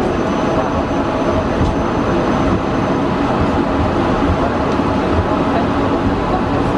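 Steady cockpit noise of an Embraer KC-390 Millennium taxiing: its two IAE V2500 turbofans run at low taxi power under a dense, even rumble from the rolling airframe. A faint high steady tone sits over it for about the first half.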